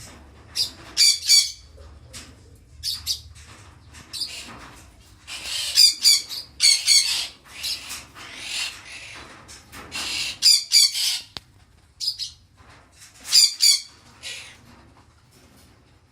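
A bird giving short, harsh, raspy calls, often two or three in quick succession, with a longer run of calls in the middle and brief pauses between clusters.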